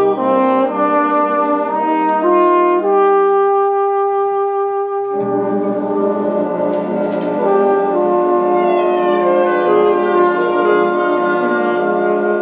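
XO flugelhorn playing a slow melody in long held notes over an accompaniment, which fills out about five seconds in.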